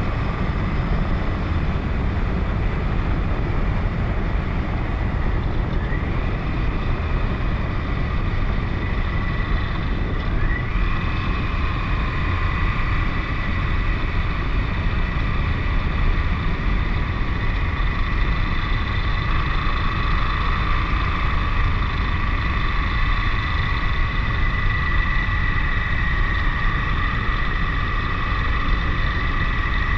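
KTM 1090 Adventure motorcycle's V-twin engine running at speed, with steady low rushing noise. A high whine glides up in pitch about six seconds in and again about ten seconds in, then holds.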